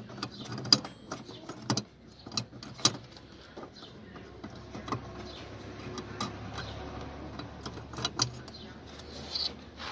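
Sharp plastic clicks, knocks and scraping as hands feel for the opening and twist a new H7 halogen bulb into the back of a BMW E60 headlight housing. The clicks are thickest in the first few seconds and again near the end, with a low steady hum underneath.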